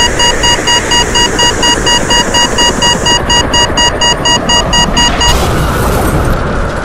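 A loud, rapidly pulsing electronic alarm tone, about five beeps a second, over a heavy rumbling noise. The beeping stops about five seconds in, and the rumble fades away after it.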